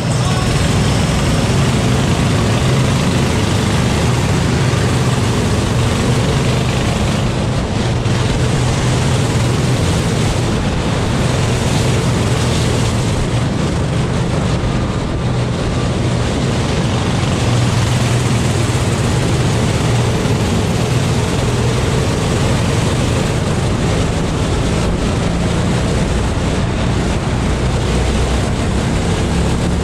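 Go-kart engine running hard, heard from an onboard camera, its pitch shifting as the throttle is worked through the lap.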